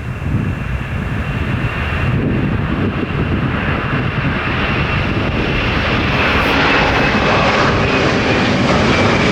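Jet airliner engines running with a steady rushing noise and a thin high whine, growing gradually louder.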